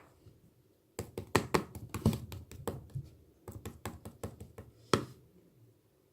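An irregular run of sharp taps and clicks, starting about a second in and stopping near five seconds, with one louder knock at the end.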